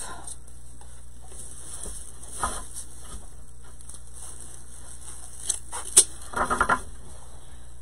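Scissors cutting deco mesh: quiet handling with a few light clicks, the sharpest snip about six seconds in.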